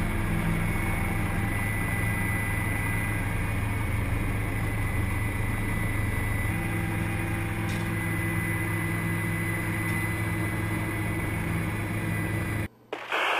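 Helicopter engine and rotor drone heard from inside the cabin, steady with a low hum, cutting off suddenly near the end as a radio voice begins.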